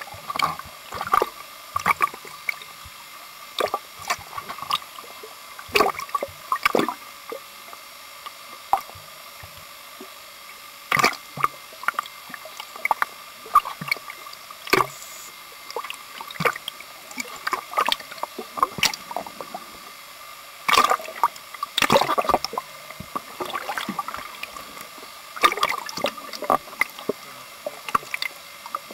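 Seawater splashing and gurgling against a camera housing bobbing at the surface: irregular slaps and sloshes, heard from half under the water line, over a faint steady tone.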